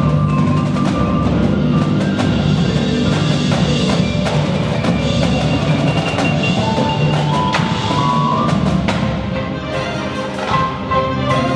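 High school marching band playing, with held low brass chords and frequent percussion hits, plus higher sustained notes over the top.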